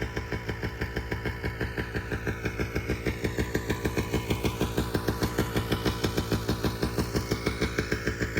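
Paramotor engine running steadily, with a regular pulsing beat of about eight a second.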